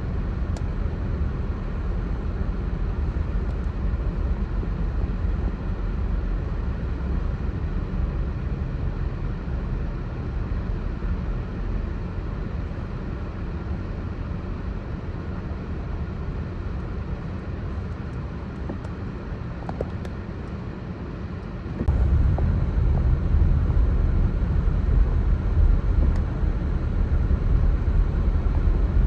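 Steady low outdoor rumble without any clear tone or rhythm. It turns abruptly louder and heavier about 22 seconds in.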